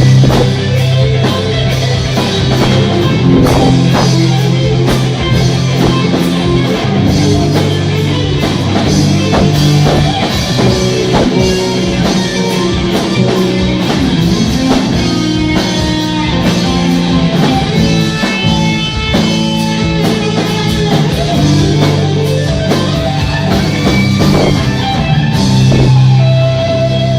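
Rock music with electric guitar and a drum kit playing steadily.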